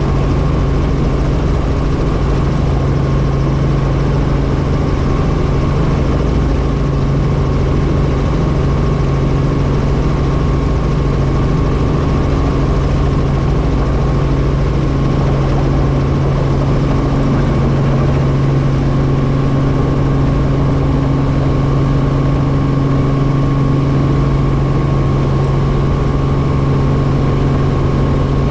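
Helicopter engine and rotor noise: a loud, steady drone with a constant low hum.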